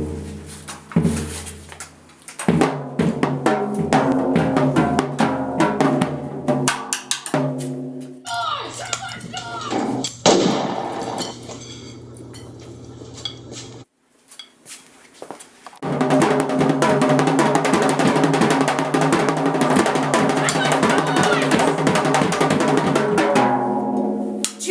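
Music with a drum kit and pitched instruments. It cuts out briefly about halfway through, then comes back just as dense.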